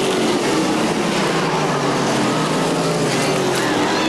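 Several stock-car racing engines running hard around the track, their pitches rising and falling as the cars go by.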